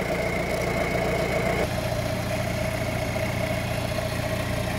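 UAZ off-roader's engine idling steadily. A faint high whine over it stops about a second and a half in, and the engine keeps running.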